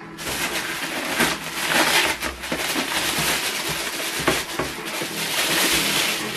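Clear plastic packaging bag crinkling and rustling as it is pulled off a slim flatbed scanner, a continuous crackle with sharp snaps now and then.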